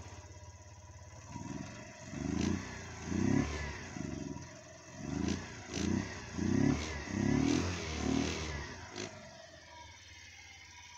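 Barton FR 50cc motorcycle engine idling, then revved in about nine short throttle blips, with a few sharp clicks among them, before settling back to a steady idle.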